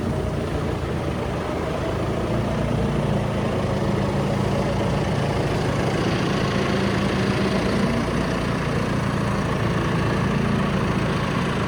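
Tractor-driven straw blower running steadily, its big fan and two beaters ripping straw from a bale and blowing it out as cattle bedding, over the tractor engine's steady running.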